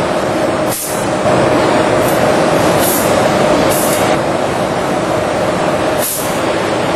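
Robotic pneumatic adhesive-dispensing cell running with steady machinery noise and a held hum. Four short hisses of compressed air are spread through it.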